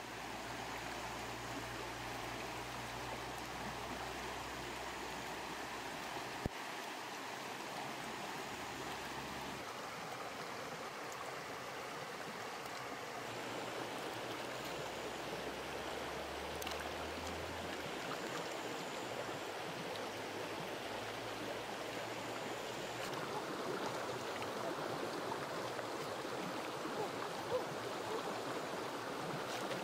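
Shallow rocky stream flowing, a steady rush of water over stones, with a brief splash near the end as lettuce is rinsed and shaken in the current.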